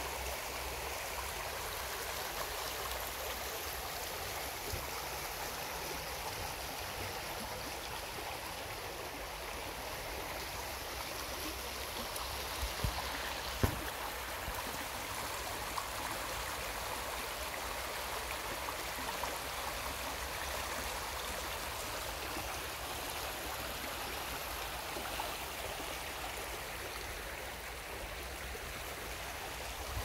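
Shallow stream rushing and splashing over flat stones: a steady, even rush of water. Two brief knocks about halfway through.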